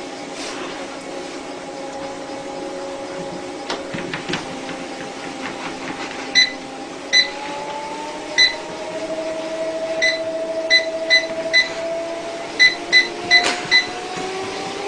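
Electric treadmill running with a steady motor whine. From about six seconds in, the control console gives about eleven short identical beeps, and the motor's pitch climbs as the belt speed is raised.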